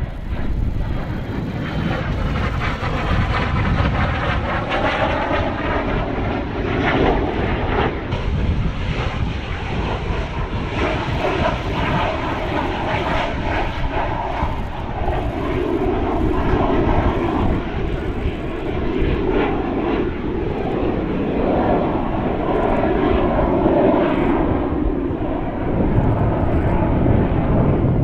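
Kawasaki T-4 jet trainers flying over, their turbofan engines making a loud, continuous jet roar whose tone sweeps and shifts as they pass.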